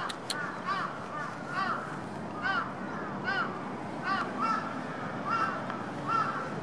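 A cat meowing over and over in short calls that rise and fall in pitch, about two a second.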